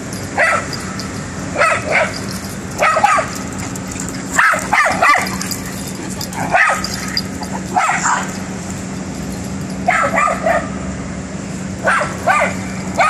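A dog barking during rough-and-tumble play with other dogs: short, sharp barks, singly or in quick pairs and triples, repeating every second or two.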